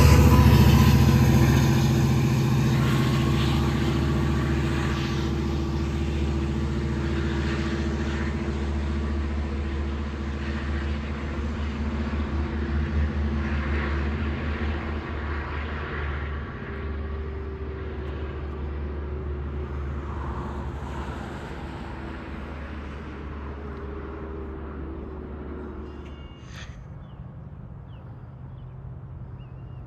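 A diesel locomotive's engine drones with steady low tones while the train moves away, and the sound fades slowly and evenly over the half-minute.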